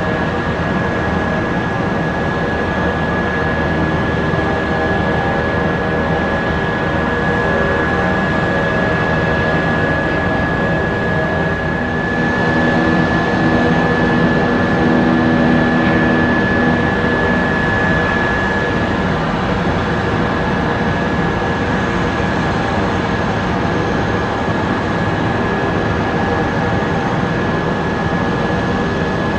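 Pratt & Whitney Canada PT6 turboprop of a Cessna 208B Grand Caravan EX taxiing: a steady high turbine whine over the propeller's low drone, swelling louder for a few seconds about halfway through.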